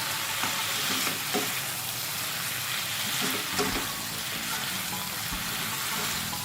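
Bok choy, tofu and minced chicken sizzling steadily in a hot pan as they are stir-fried, with a few brief scrapes and knocks of the stirring utensil.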